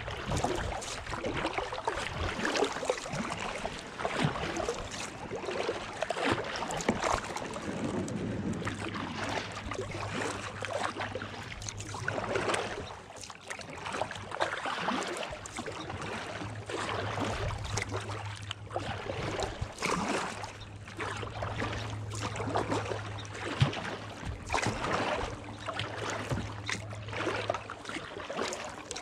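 Kayak paddle strokes through calm water, a splash and drip of the blade roughly every two seconds. A low steady hum joins in underneath from about eight seconds in.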